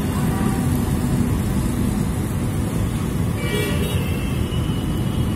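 Steady rumble of busy city road traffic, motorbikes and auto-rickshaws passing, with a brief higher-pitched sound about three and a half seconds in.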